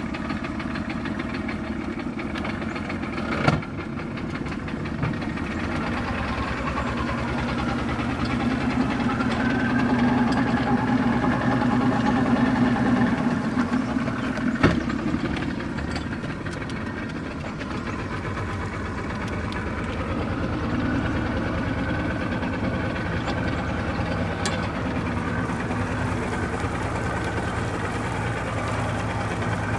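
Small boat's outboard motor running steadily as it pushes the boat along, getting louder for a few seconds around the middle. Two sharp knocks stand out, one a few seconds in and one about halfway through.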